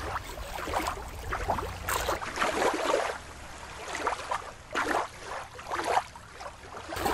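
Water lapping and rippling in irregular swells, with a low steady rumble under it for the first two seconds, after which the sound changes abruptly to a thinner lapping.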